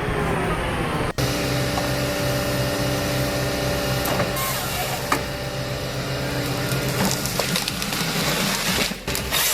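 Heavy machine's diesel engine running steadily at a constant pitch. Two abrupt cuts, about a second in and near the end, mark edits between clips.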